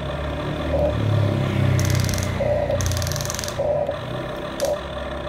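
Huina remote-control toy excavator working its boom and arm: small electric motors and gearboxes whirring in spells, with a higher whine twice, about two and three seconds in.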